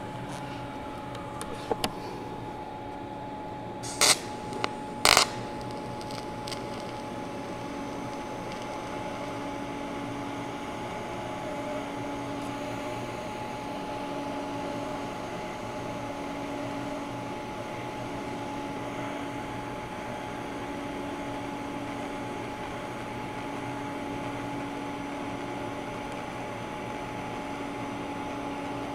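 DC TIG welding arc on aluminum plate, running as a steady hum with a faint hiss. There are two sharp crackles about four and five seconds in. From about eight seconds a low tone in the hum comes and goes about every two seconds.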